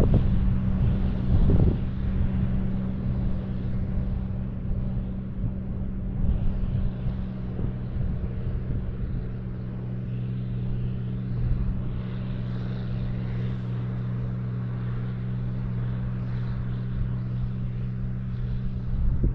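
Tractor engine running at a steady speed while pulling a fertilizer spreader across the field, with wind buffeting the microphone.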